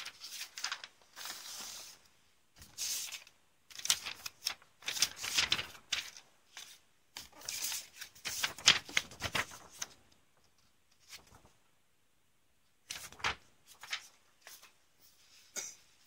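Paper instruction sheets and packaging being handled in a cardboard model-kit box: irregular bursts of rustling and crinkling with small clicks, busiest for the first ten seconds, then a pause and a few more rustles near the end.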